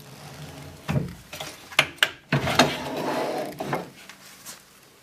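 A dresser drawer being worked on its metal tracks: a few sharp clicks and knocks, then a longer rattling slide about halfway through, and a last soft knock near the end.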